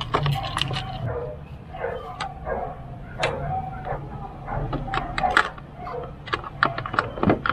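Hands handling and unfastening parts at a car's firewall beside an oil catch can: a string of sharp clicks, taps and rattles of plastic and metal, with short squeaky tones in between.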